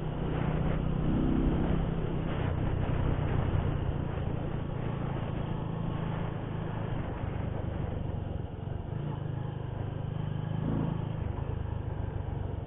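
Sport motorcycle's engine running as it is ridden along a rough concrete road, with a steady low engine note. The engine note drops back about eight seconds in.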